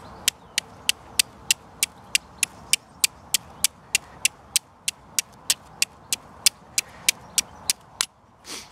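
The back of a high-carbon steel folding knife striking a piece of flint, flint-and-steel style, in a quick, even run of sharp clicks, about three a second. The strikes throw sparks down onto charred cloth to catch an ember. The striking stops just before the end, and a brief softer sound follows.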